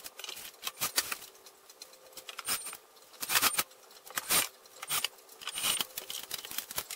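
Metallic clinks and rattles of a steel electrical panel cover being fitted and screwed on with a cordless drill-driver. A few short, very high whines sound among the clinks.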